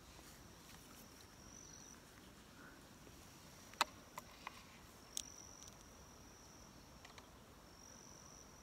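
Faint, steady, high-pitched insect trilling that swells a few times, with a few sharp clicks about four to five seconds in, the first the loudest.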